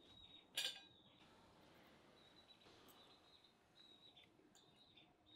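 A single sharp clink of metal cutlery against a ceramic plate about half a second in, ringing briefly, with faint high bird chirps on and off around it.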